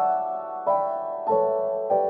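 Background piano music, a gentle chord or group of notes struck about every two-thirds of a second and left to ring.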